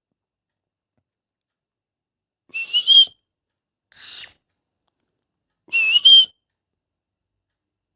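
A baby plum-headed parakeet giving three short, shrill calls about a second and a half apart. The first and last have a brief rising, whistle-like tone.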